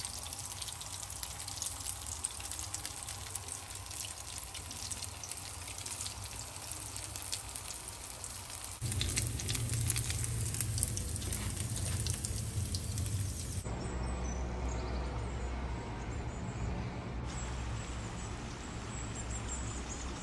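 Fish cutlets shallow-frying in hot oil in a cast-iron skillet: a steady sizzle of fine crackling pops. About nine seconds in a low steady hum joins it, and a few seconds later the sizzle stops, leaving a quieter low background.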